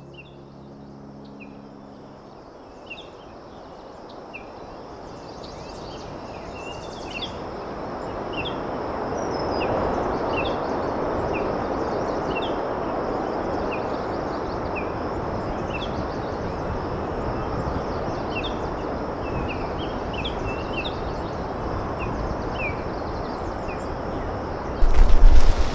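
Small birds calling outdoors with many short, high chirps over a steady rushing noise that swells during the first several seconds and then holds. Near the end there is a loud, low blast on the microphone.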